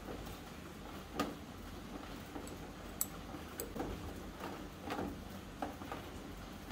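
A tiny metal spoon scraping and tapping against a thin plastic tray as it scoops out soft coconut mixture: scattered light clicks and short scrapes, with a sharper click about a second in and another about three seconds in.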